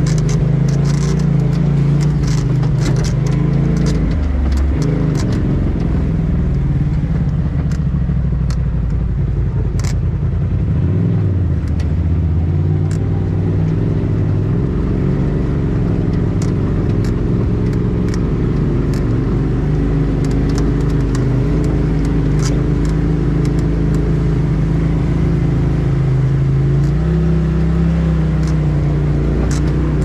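Polaris RZR Turbo S side-by-side's turbocharged twin-cylinder engine running at trail speed, heard from the cab, its pitch rising and falling with the throttle. Scattered clicks and rattles come through, mostly in the first third.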